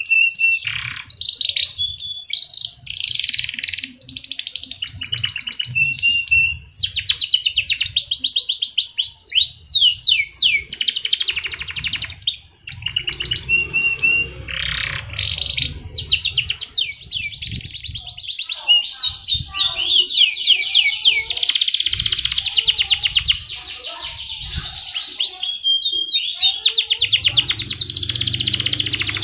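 Domestic canary singing a long, continuous song of rapid trills, rolls and sweeping whistles with few pauses. This is the vigorous 'gacor' singing that keepers play as a tutor song to get other songbirds to sing.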